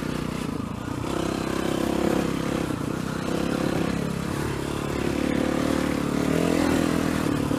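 Dirt bike engine running at a fairly steady throttle while riding, its pitch rising and falling a little.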